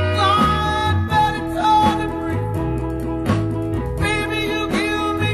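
Early-1960s swamp pop record playing: a band with a moving bass line and a steady beat.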